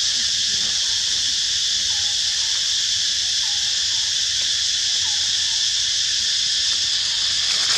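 Steady, high-pitched insect chorus droning without a break, with a few faint short chirps over it a couple of seconds in.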